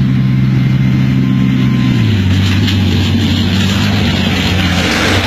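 An engine running steadily with a low hum; its pitch drops a step about two seconds in and then holds.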